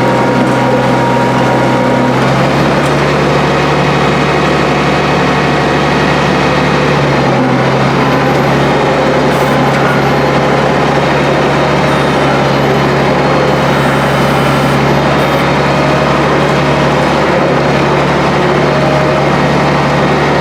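International 1066 tractor's turbocharged six-cylinder diesel running steadily and loud, heard close up; its engine note steps up slightly about two seconds in.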